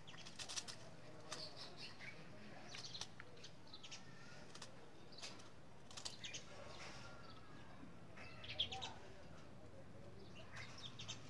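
Small birds chirping on and off, short scattered chirps, faint against a low background hiss, with soft clicks and squishes from fingers scooping out the flesh of a raw tomato.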